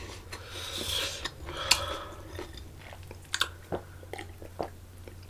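Eating and drinking mouth sounds: swallowing gulps of a drink and chewing. A soft wet hiss in the first two seconds gives way to scattered small clicks.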